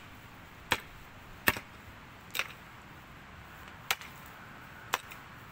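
A pickaxe striking wet, stony soil in five sharp blows, roughly a second apart.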